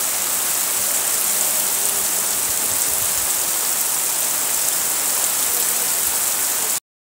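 Heavy rain pouring down on bare ground and scrub, a dense, steady hiss that cuts off suddenly near the end.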